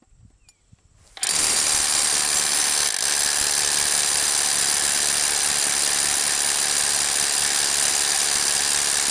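Ryobi One+ P223 brushless SDS Plus rotary hammer starting up about a second in and hammer-drilling a 3/4-inch hole into limestone, running loud and steady.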